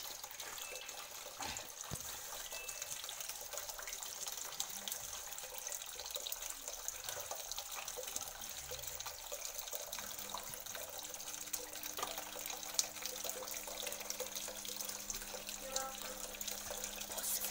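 Kitchen tap running steadily into a plastic bowl of water, with small knocks and splashes as potatoes are scrubbed with a sponge in the bowl. A low steady hum comes in about ten seconds in.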